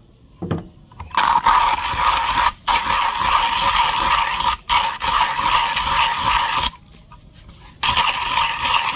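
Hand-cranked coffee grinder grinding roasted coffee beans, the burrs giving a steady crunching scrape as the handle turns. The grinding breaks off briefly twice and pauses for about a second near the end before starting again.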